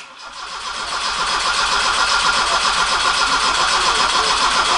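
Vauxhall Astra GTE's four-cylinder engine starting for the first time after welding work, then running with a fast, even pulsing. It grows louder over the first second and a half, then holds steady.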